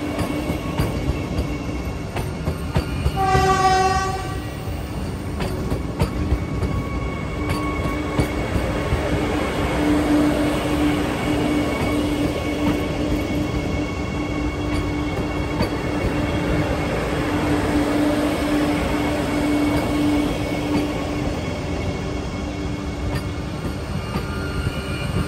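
Vande Bharat Express electric trainset departing, its coaches rolling slowly past with a continuous wheel-and-rail rumble and a steady low hum. A short horn blast sounds about three seconds in, and a few sharp clicks follow soon after.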